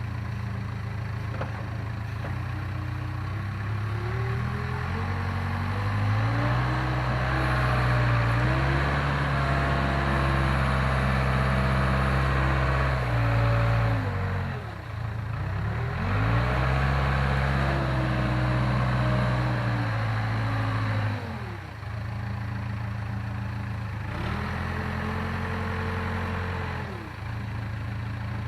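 Case 580K backhoe's diesel engine revving up and holding high under load, then dropping back toward idle, three times over. The machine is straining to push dirt while its tires spin and sink in the mud.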